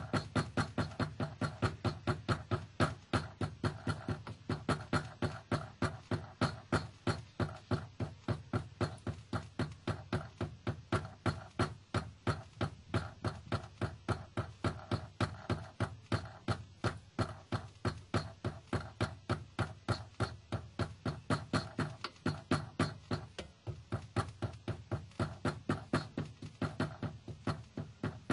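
A loose part around a car's fuel tank knocking over and over in an even rhythm, about four knocks a second: the rattle heard from the rear of the car while driving.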